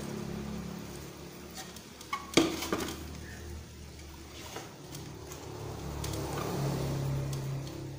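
A wooden board being handled and laid down on a wooden workbench: one sharp knock about two and a half seconds in, with a few smaller knocks and handling sounds around it.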